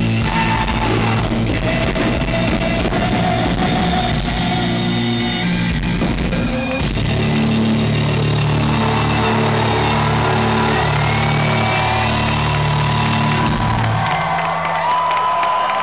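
Live heavy-metal cello band playing the closing section of a song: amplified cellos and a drum kit, loud and rough from a camera in the crowd. From about halfway through the band holds a long low chord, whose low end drops out near the end, leaving a higher ringing note.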